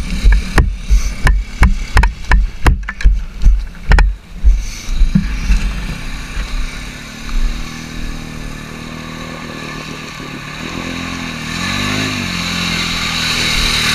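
Can-Am Outlander 450 ATV's single-cylinder engine running and revving up and down as it ploughs through deep muddy water, with a rising hiss of churning water toward the end. Dull thumps about two to three a second for the first few seconds, from the camera being carried along.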